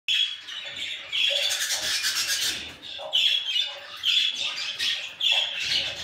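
Baby budgerigars calling: a string of scratchy, chattering calls, roughly one a second.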